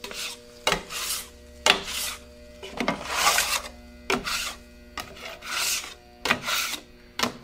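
A scraper worked across the flat top griddle's cooking surface in about ten short, irregular strokes, scraping off stuck-on debris.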